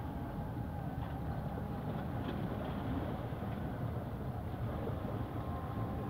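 Steady low outdoor rumble at the seashore, even throughout with no distinct events.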